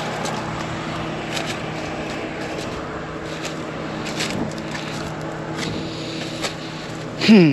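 Combine engine running steadily at idle, with scattered short rustles and clicks on top. Near the end there is a loud, short sound falling in pitch.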